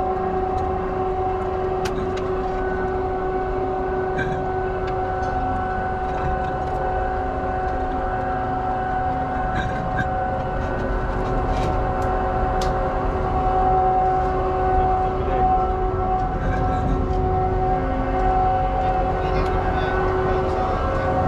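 Steady drone of shipboard machinery on the forecastle: a low rumble under several held tones, with a few light metallic clicks.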